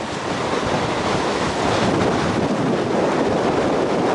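Strong wind blowing across the microphone, with choppy waves washing against the sandy shore; a steady, even rush throughout.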